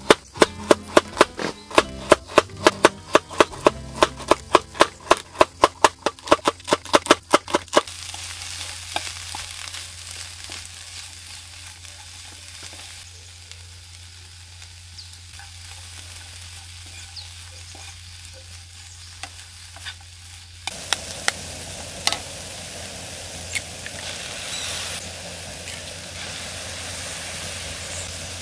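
Knife chopping carrot on a wooden cutting board, about three quick strikes a second for the first eight seconds. Then shredded cabbage and carrot sizzle steadily in a wok on a portable gas canister stove while being stirred with a wooden spoon. The sizzle gets louder about twenty seconds in, with a few sharp knocks.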